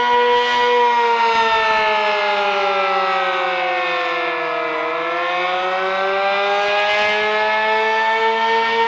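Sentry 15V2T-B dual-tone outdoor warning siren sounding its Attack signal. The chord slides down in pitch over about four seconds, then climbs back up near the end, with a slight pulsing. The siren needs fresh batteries and is not running at full strength.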